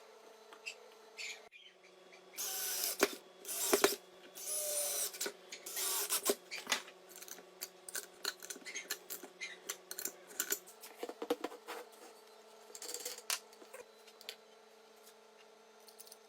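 Small electric motor humming steadily; about a second and a half in, its pitch drops and stays lower for about nine seconds before coming back up. While it is lower there are loud bursts of scraping and rasping, strongest in the first few seconds and again briefly later.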